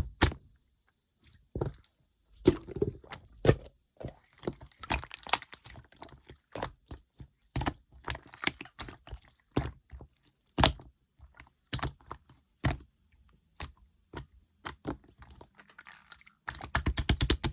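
Clear slime being pressed and stretched by hand, giving irregular sticky clicks, pops and crackles as air pockets burst.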